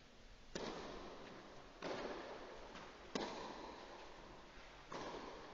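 Tennis ball struck by rackets in a rally on a clay court: four sharp hits about one and a half seconds apart, each ringing briefly in a large hall.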